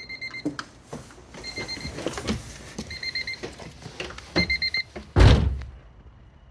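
Car warning chime beeping in short rapid groups about every second and a half, with small clicks of someone getting in, then a loud thump of the door shutting just after five seconds, after which the chime stops.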